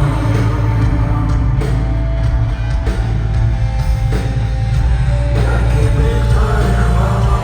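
Rock band playing live, loud, with heavy bass.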